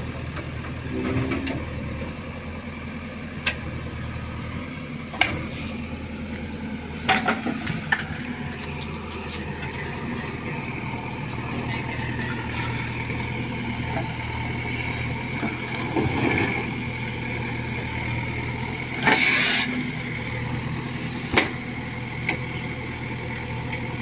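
JCB 3DX backhoe loader's diesel engine running steadily as the backhoe arm digs, with scattered sharp clanks and knocks from the bucket and linkage. A brief noisy rush comes near the end.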